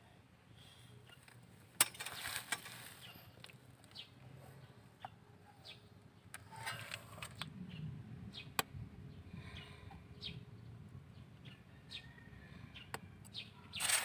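Quiet hand-work on a disc brake caliper while grease is packed into the slider pin boots: soft rustling of the grease packet and scattered sharp little clicks of metal parts, the sharpest about two seconds in and again past the middle. A spray hiss from a can of brake cleaner starts at the very end.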